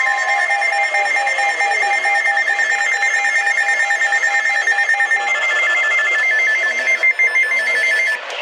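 Several weather radio receivers alarming at once, set off by the warning broadcast's 1050 Hz alert tone, which fades out just as they sound. They give fast, repeating electronic beeps in more than one pitch: a lower beep stops about five seconds in, and the rest cut off suddenly near the end.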